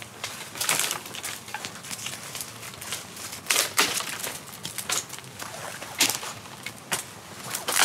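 Dry brushwood crunching and snapping in irregular sharp cracks, several over the span, the loudest about halfway through and near the end.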